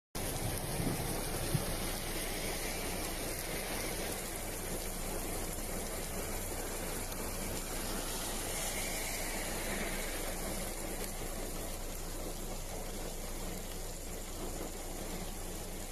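Heavy rain falling steadily on wet pavement, a dense, even hiss.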